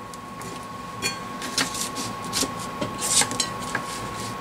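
Scattered light clicks and soft rustles of hands handling double-stick tape, over a steady faint high-pitched hum.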